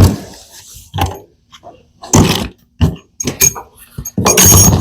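Knocks and clunks of tools and the steel tool box being handled, about half a dozen separate hits, with a louder rattling, scraping stretch near the end.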